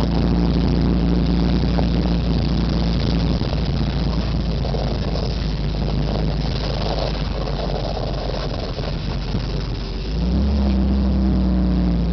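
Engine of the vehicle towing the sleds, running steadily under a broad rushing noise. About ten seconds in it speeds up: its note steps up and grows louder.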